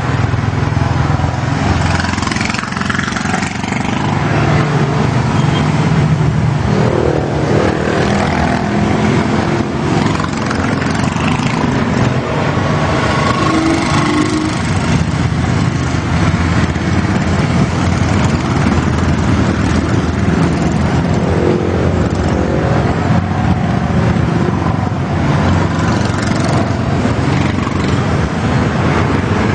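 Motorcycle running steadily on the road under way, with traffic around it and a few brief pitched sounds such as horns.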